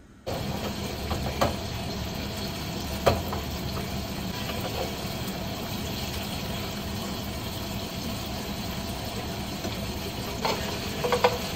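Food sizzling in a frying pan, a steady hiss that starts suddenly, with a few sharp clinks of a utensil against the pan: one about a second and a half in, a louder one about three seconds in, and a quick cluster near the end.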